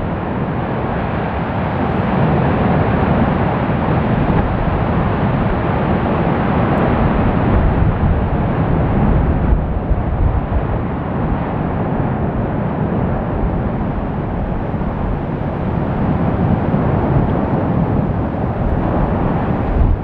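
Fagradalsfjall volcanic vent erupting in a lava fountain: a loud, continuous, deep rushing noise of gas and lava jetting from the crater, steady throughout.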